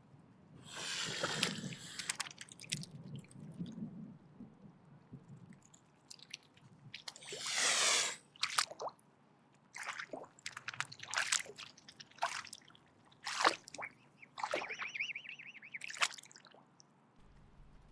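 Mute swan hissing in repeated breathy bursts, a long hiss about a second in and another midway, then a string of shorter, sharper hisses: the swan's threat display in defence.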